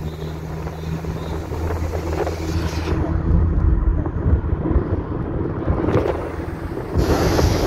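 Steady engine hum and road and wind noise inside a moving 2008 Mazda Allegro driving along a city street. The rushing air noise grows louder about seven seconds in.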